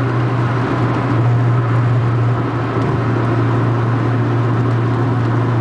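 Car interior at steady motorway cruise: a low, constant engine drone under road and wind noise.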